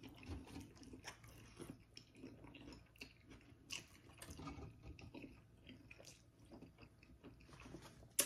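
Faint close-miked chewing of a mouthful of birria pizza: soft mouth clicks and small crunches scattered irregularly.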